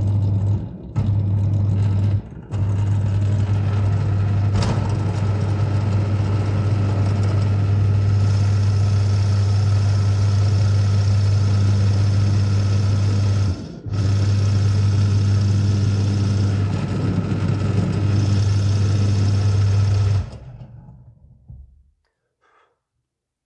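Small benchtop drill press motor running with a steady hum and whir as its cutter bores deeper into a wooden rifle stock. It stops and restarts briefly three times, then winds down near the end.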